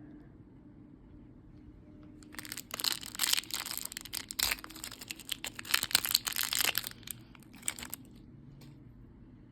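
Plastic toy packaging being crinkled and torn open by hand: a run of crackling and crinkling that starts about two seconds in and lasts about five and a half seconds.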